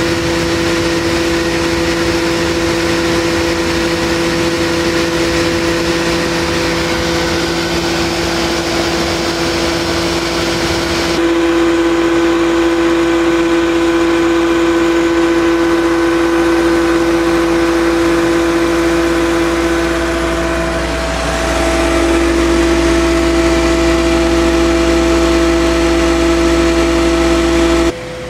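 Wood shaper and its Comatic power feeder running steadily, the feed rollers driving stock past the spinning cutter to cut a pattern profile: a loud, steady machine hum. The sound changes abruptly about a third of the way in and shifts again in pitch later on, then drops off sharply at the very end.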